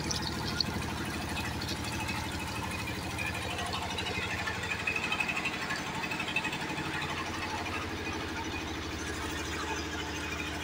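An engine running steadily with an even, pulsing drone, with sugarcane juice pouring from a pipe and splashing into a metal tank.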